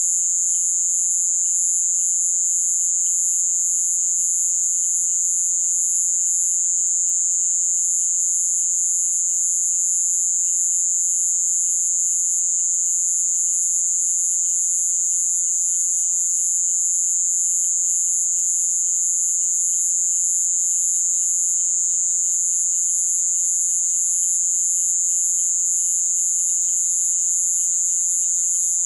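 Nighttime Amazon rainforest chorus of insects and frogs: a steady, loud, high-pitched drone with a fast pulsing trill above it and fainter pulsed calls lower down.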